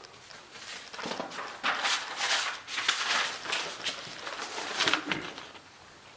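Irregular footsteps and scuffing, as a person walks across a room.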